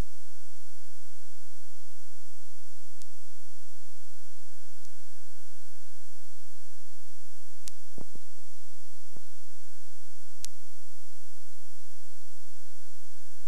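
Steady hum and hiss of an old dashcam videotape's audio track, with a thin steady whine, broken by a few clicks around the middle.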